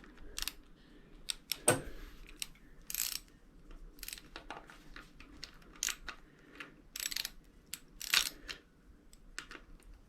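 Irregular light clicks and scrapes of screws and a hand tool being worked into a motorcycle's right handlebar switch housing, with one sharper click about two seconds in.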